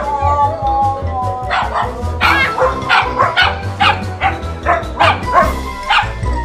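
Siberian husky talking back in a run of short yowls and whines, the protesting vocalising of a scolded husky, over background music.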